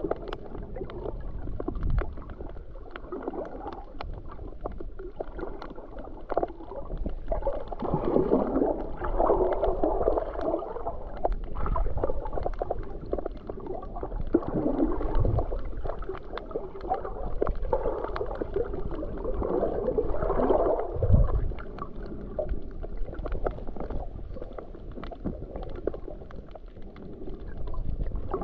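Muffled underwater sound picked up by a GoPro while snorkeling: gurgling water movement that swells and fades, with scattered faint clicks and a few low thumps.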